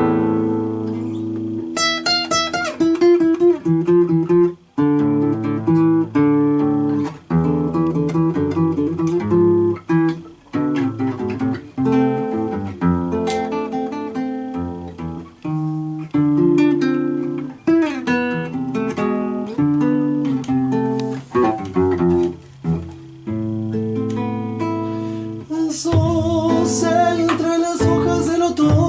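Acoustic guitar and bass playing an instrumental passage of an Argentine folk song, with a continuous run of plucked guitar notes over low bass notes.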